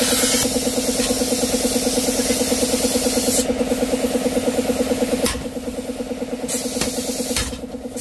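Gas cutting torch hissing against a steel motorcycle muffler shell, the hiss stopping about three and a half seconds in. Then a few sharp metal knocks of a hammer on a chisel against the shell, over a steady mechanical hum that runs throughout.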